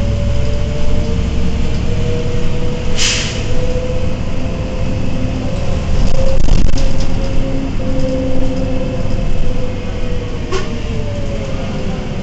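Iveco EuroRider bus with a Tector diesel and ZF Ecomat automatic gearbox driving along, heard from inside: a low rumble under a drivetrain whine that slowly rises and falls. A short sharp hiss comes about three seconds in, and a fainter one near the end.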